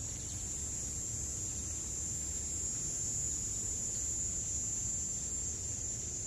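Outdoor ambience: a steady high-pitched drone of insects over a low rumble.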